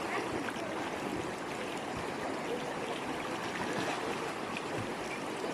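River water running steadily over rocks.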